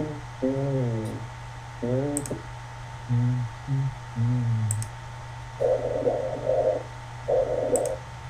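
Short snippets of recorded normal lung sounds played by a chest-auscultation training simulator, each cut off after a second or two, with four light mouse clicks between them. Some snippets have a pitched, voice-like tone. Two later ones are breathy rushes of airflow.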